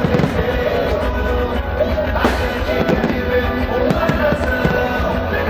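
Fireworks going off with repeated bangs, the sharpest about two seconds in, over loud music from the show's sound system and a constant low rumble.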